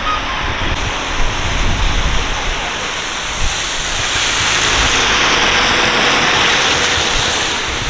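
Wind rushing over the microphone, and a delivery van driving past on a wet road, its tyre hiss swelling from about four seconds in.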